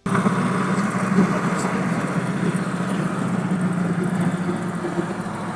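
Steady engine and road noise inside a moving vehicle's cabin, a continuous low drone.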